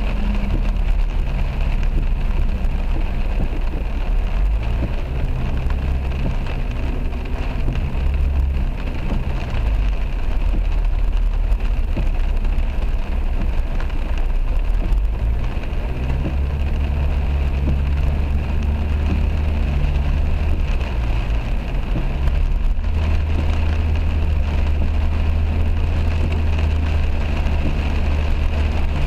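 Heavy rain falling on a moving car, heard from inside the cabin: a steady hiss of rain and wet-road tyre noise over the low, even drone of the car driving at speed.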